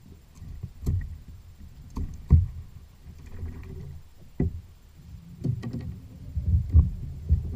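Fishing kayak sitting on the ocean: a steady low rumble of water and hull, broken by several scattered knocks against the kayak.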